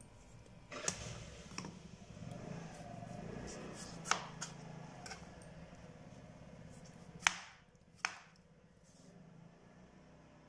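Kitchen knife slicing through a raw peeled potato on a plastic cutting board, cutting slices off its sides, the blade knocking on the board with each cut: several sharp knocks at uneven intervals, the loudest about seven seconds in.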